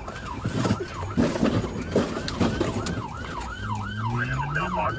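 Police car siren on yelp, sweeping rapidly up and down about three to four times a second and strongest in the second half. Clattering noise and knocks fill the first half, and a low tone climbs in pitch near the end.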